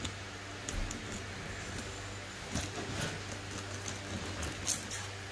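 Box cutter slitting the packing tape on a cardboard shipping box: faint, irregular scratching and a few short clicks, over a steady low hum.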